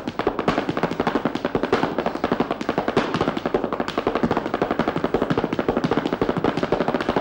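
Flamenco zapateado footwork: a dancer's heeled shoes stamping rapidly on a stage floor, a fast, unbroken run of sharp heel-and-toe strikes, many each second.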